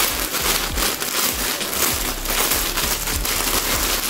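Clear plastic polybags crinkling and rustling as hands handle and open the sweater packaging, a dense, crackly rustle throughout.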